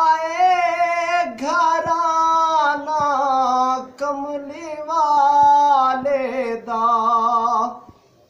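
A man singing a Punjabi naat unaccompanied, drawing the words out into long held notes with a wavering, ornamented pitch. The singing breaks off near the end.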